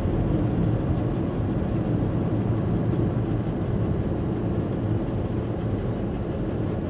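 Motorhome driving at road speed, heard from inside the cab: a steady low rumble of engine and tyre noise.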